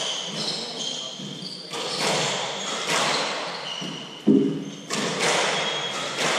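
A hardball doubles squash rally: the ball is struck and smacks off the court walls every second or so, with sneakers squeaking on the court floor. The loudest hit, about four seconds in, has a short hollow ring.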